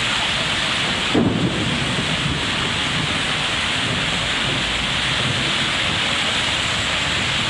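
Steady rushing noise of rain and of cars ploughing through a flooded street, their tyres throwing up waves of water, with wind buffeting the microphone. A brief louder buffet comes about a second in.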